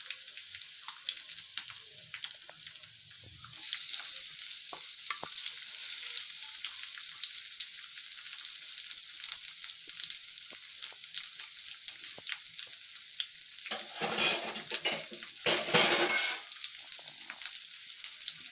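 Garlic and green chillies sizzling in hot oil in a kadhai while a spatula stirs them, with scattered scraping clicks. The sizzle grows louder about three and a half seconds in, and near the end come two louder surges of sizzling and stirring.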